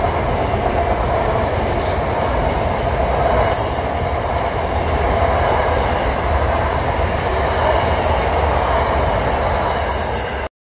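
Freight train of container wagons rolling past close by: a steady rumble of wheels on rail with short high-pitched wheel squeals here and there. It cuts off abruptly near the end.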